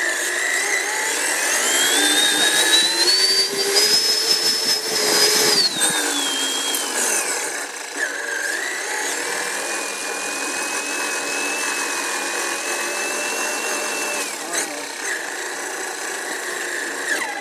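Traxxas Summit RC truck's electric motor whining under the onboard microphone. The whine rises over the first few seconds, holds, falls away, then rises again and holds steady for several seconds before dropping near the end, following the throttle.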